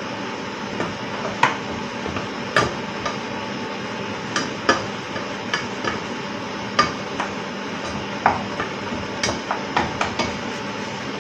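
Wooden spatula stirring in a stainless steel pot, knocking against its sides and bottom in irregular sharp clacks, over a steady background hiss.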